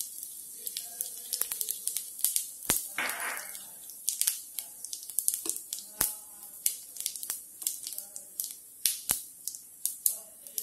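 Whole spices (cinnamon, black pepper, cardamom, cumin) frying in hot oil in a steel kadai: a steady sizzle with many scattered sharp crackles and pops, and a brief louder hiss about three seconds in.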